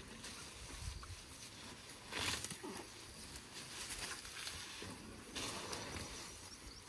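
African elephants grazing at close range: faint rustling and tearing of grass as trunks pull it up. Louder bursts come about two seconds in and again about five and a half seconds in.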